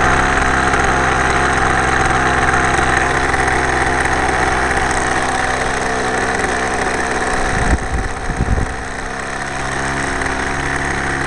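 RC trainer model airplane engine running steadily at idle, heard close up through a camera mounted on the plane, with a few low bumps from handling about two thirds of the way in.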